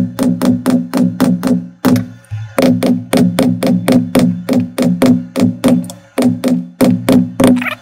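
A leather stamping tool struck rapidly with a mallet, tooling the border of a sheath piece laid on a granite slab: an even run of sharp taps, about five a second, each with a short low ring, pausing briefly twice as the tool is moved along.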